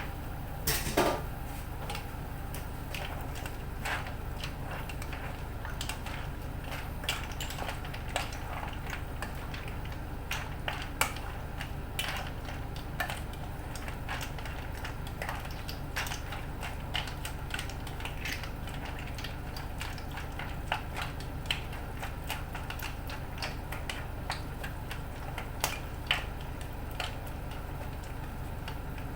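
Scattered clicks and clinks from a pot of boiling clam and spinach soup, with a louder clatter about a second in, over a steady low hum.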